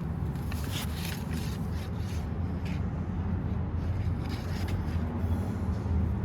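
Scattered scraping and light knocking, like objects being handled, over a steady low rumble.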